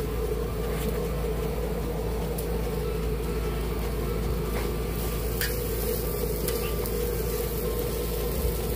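Food sizzling on a flat-top griddle under a steady low hum, with a few sharp clicks of metal tongs and spatula against the griddle and steel trays.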